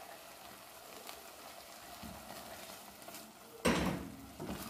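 Tomato sauce sizzling faintly in a saucepan on the stove while a wooden spoon stirs thick cream into it. About three and a half seconds in comes a single louder knock, followed by a few small clicks.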